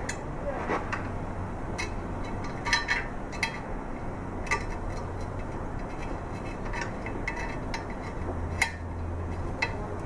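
Light metal clicks and clinks, about ten spread irregularly, from a hex key and a free-float handguard rail being handled while the rail's clamping set screws are tightened a little at a time.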